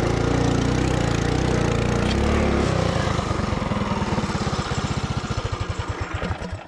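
Mini bike's small single-cylinder four-stroke engine pulling hard up a steep, rocky dirt climb. Its beat slows from about halfway through as it lugs down, and it cuts out at the very end: the rider puts this down to gearing too tall for the hill.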